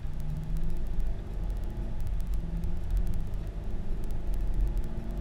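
Car driving on a paved road, heard from inside the cabin: a steady low rumble of tyre and engine noise.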